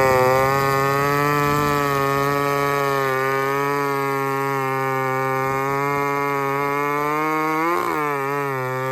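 Two-stroke chainsaw running at a high, steady speed, its pitch rising briefly and then dipping near the end.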